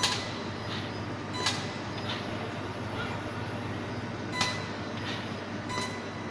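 Steel plank production line running with a steady machine noise, broken four times by sharp metallic clanks that ring briefly, as steel parts strike each other.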